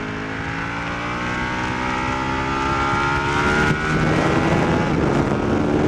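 Sport motorcycle engine pulling hard in gear, its pitch rising steadily as the bike accelerates. There is a short break a little over halfway through, then the engine pulls on, with wind rush growing louder.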